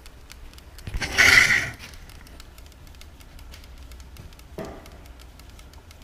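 Liquid nitrogen boiling in a switched-on electric kettle, with a steady faint crackle of small pops. A loud hissing burst comes about a second in, and a shorter, weaker one comes near five seconds.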